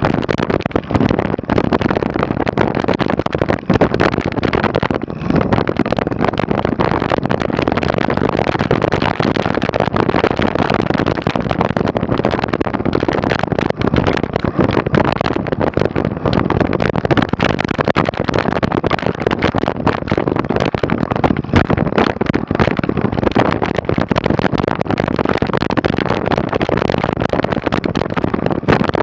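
Mountain bike riding down a snowy trail: a steady loud rush of wind and tyre noise with constant rattling knocks from the bike over the rough ground.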